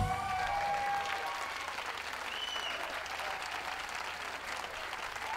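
Audience applauding, a steady patter of many hands clapping that eases off slightly toward the end.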